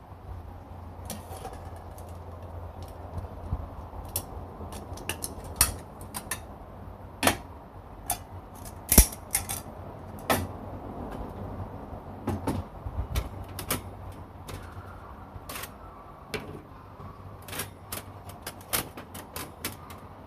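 Irregular metallic clicks and clinks of the parts of a folding stainless-steel fire pit and its grill grate being handled, the loudest about nine seconds in, over a low steady hum.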